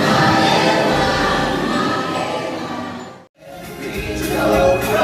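Music with choir singing. It fades out about three seconds in, and another passage of music begins straight after.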